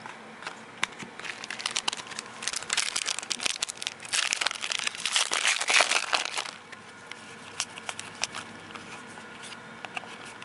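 Foil wrapper of a baseball card pack crinkling as it is torn open, loudest from about four to six and a half seconds in. Light ticks of cards being shuffled in hand before and after.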